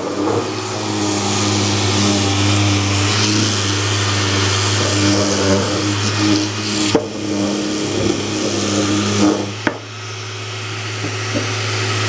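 Random orbital sander running on a hickory handle blank: a steady motor hum with the hiss of the abrasive on the wood. Near the end the hiss drops away, leaving a quieter steady hum.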